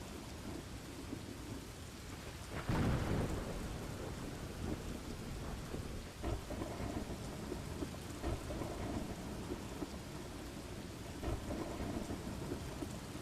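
Steady rain with thunder: a loud thunderclap about two and a half seconds in that rolls off into rumbling, and softer rumbles of thunder later on.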